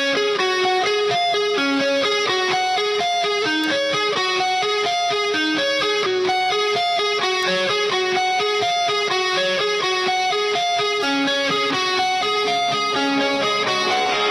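Background music: a guitar picking a fast, repeating run of single notes at a steady level.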